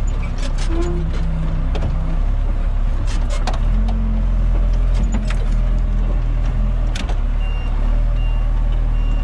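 John Deere 3200 telehandler's diesel engine running under hydraulic load as the boom and attachment are worked, its pitch stepping up and down, heard from inside the cab with repeated knocks and rattles. A faint beeping repeats near the end.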